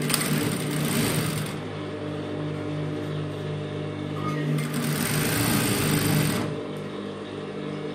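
Industrial lockstitch sewing machine stitching in two short runs, the first at the start and the second about five seconds in, over a steady low hum.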